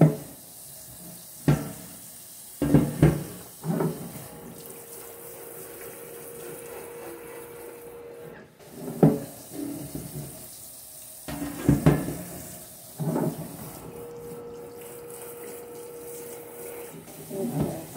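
Kitchen tap running into a sink as polish is rinsed off a sterling silver piece, with several sharp knocks and clatters of the metal against the sink. A steady low hum comes in twice for a few seconds.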